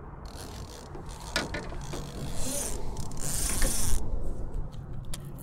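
Fishing reel being cranked: a whirring, clicking gear noise that starts a moment in, gets louder toward the end, and stops abruptly about four seconds in, with a few sharp clicks along the way.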